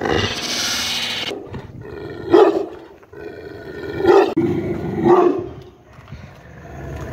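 Large black guard dog barking behind a metal gate: a harsh noisy burst at the start, then three loud barks between about two and five seconds in.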